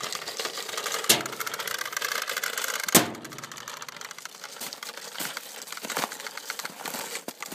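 Toy push lawnmower clattering with a fast run of small clicks as it is rolled over wet asphalt, with two sharper knocks about one and three seconds in.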